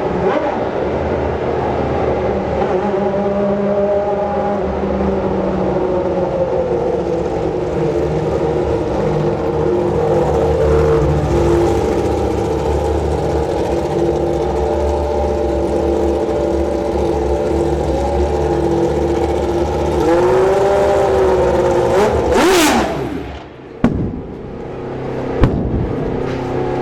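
Group C sports-prototype race car engines running on the circuit, their pitch drifting up and down with the cars' speed. About 22 seconds in, one car passes close with a sharp high rise and fall in pitch, followed by two short thumps near the end.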